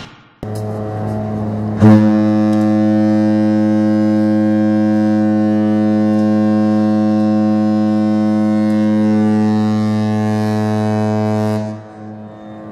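A ship's horn holding one long, deep, steady blast, first softer, then suddenly much louder about two seconds in, before dropping away near the end.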